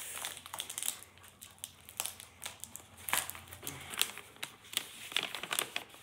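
A mailed package being torn open and handled by hand: paper and packaging crinkling and rustling in short, irregular crackles.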